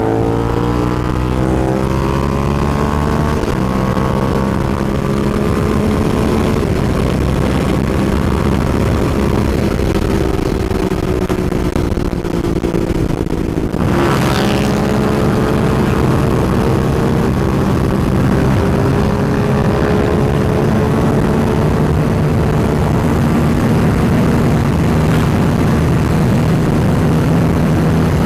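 Suzuki SV650's V-twin engine running under load at highway speed, its pitch climbing as it accelerates, with a gear change a few seconds in and an abrupt break about halfway through, over steady wind rush.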